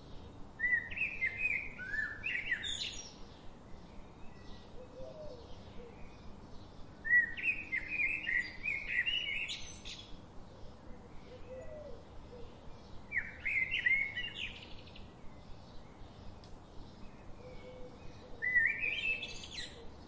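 A songbird singing the same short phrase four times, about six seconds apart, each a run of quick notes climbing in pitch, with faint rapid ticking between phrases.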